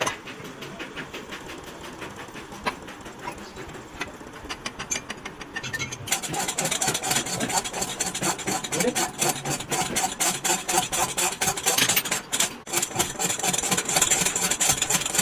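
Rapid, repeated mechanical knocking and clattering from metal work on a car's wheel bearing, getting louder about six seconds in.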